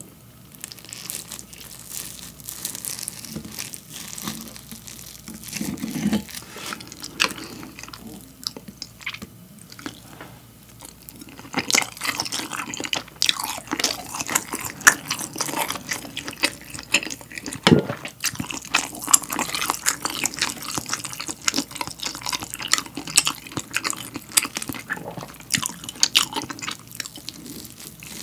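Close-miked chewing and eating sounds: a dense run of small wet, crackly mouth clicks as egg-and-rice with melted cheese and pork sauce is eaten. At times a knife and fork cut through the rice and touch the plate.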